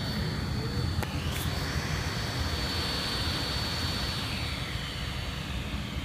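HP Pavilion x360 ultrabook's cooling fan running, a steady high-pitched whine over a rushing hiss. It is the high-pitched fan noise common in thin ultrabooks, which the owner traces to the BIOS setting that keeps the fan on all the time.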